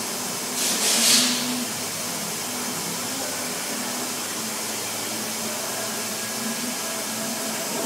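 Steady machine noise with a faint low hum, and one short, louder hiss about a second in.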